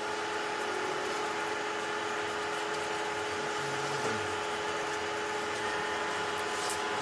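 A steady, even hum with hiss, unchanging throughout, like a small motor or fan running.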